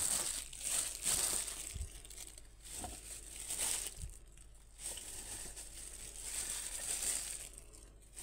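Hands handling pieces of raw pork offal, making a crinkling, rustling noise that comes and goes, with three soft thumps about two, three and four seconds in.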